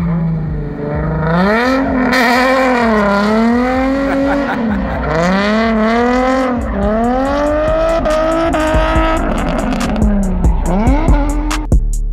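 A drift car's engine revving hard and falling back over and over, its pitch swinging up and down about once a second, with tires screeching as it slides. Near the end a run of sharp clicks cuts in.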